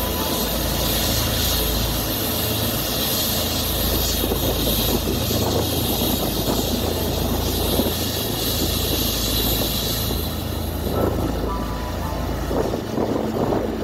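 Heavy farm machinery engines running steadily, a low hum under a constant hiss, with the hiss dropping away about ten seconds in.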